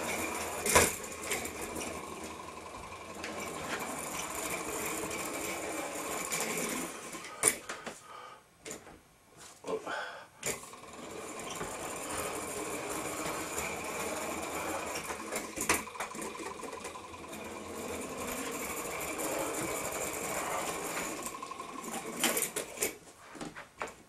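Toy Stirling hot-air engine car running along a countertop, its little engine and running gear making a fast, steady mechanical rattle. The rattle sinks for about two seconds partway through, with a few sharp clicks here and there.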